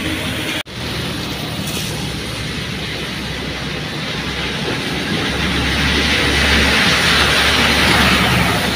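Moving vehicle heard from inside on a rain-soaked road: a steady low engine hum under a constant hiss of tyres on wet pavement, with a brief break about half a second in. In the last few seconds the hiss of wet spray swells louder as trucks pass close alongside.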